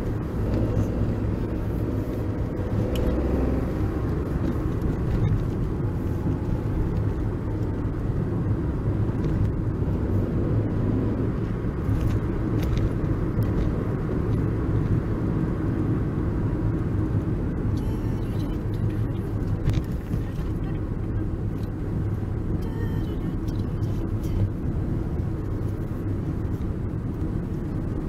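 Steady engine and road noise of a car heard from inside the cabin while driving: an even low rumble with a few faint ticks.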